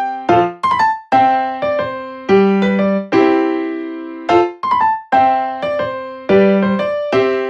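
Background music: a light piano melody of struck notes that ring and fade, its phrase repeating about every four seconds.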